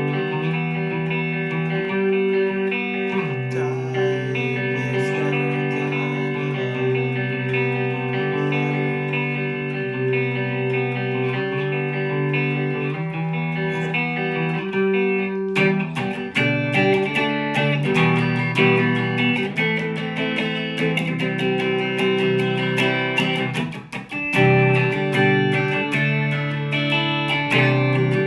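Mexican-made Fender Stratocaster with Lace Sensor pickups played through an amp: held, ringing chords for about the first half, then busier picked and strummed playing with sharper attacks, and a brief pause about three-quarters of the way in.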